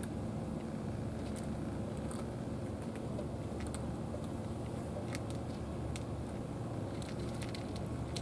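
Cat crunching dry kibble, a scattering of short crisp crunches that come more often near the end, over a steady low background rumble.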